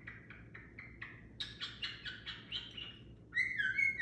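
Pet cage bird chirping: a quick run of short repeated chirps, then a longer, louder whistled call a little past three seconds in.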